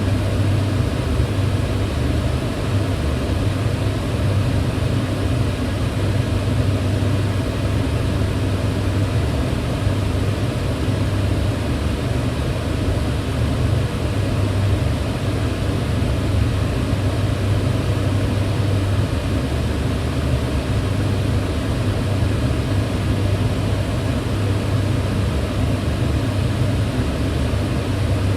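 Kitchen range hood fan running steadily: a constant low hum with an even hiss above it, unchanging throughout.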